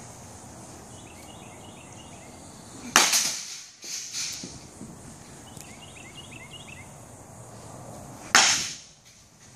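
Baseball bat striking a ball twice during batting practice, about five seconds apart: each is a sharp crack with a brief ring after it.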